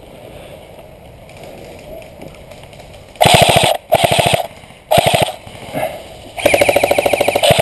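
Airsoft gun firing rapid full-auto bursts at close range: three short bursts starting about three seconds in, then a longer burst near the end.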